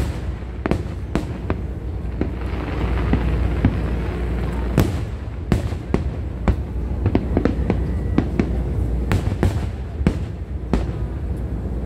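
Aerial fireworks display: shells bursting in quick, irregular bangs and cracks, several a second at times, over a steady low rumble.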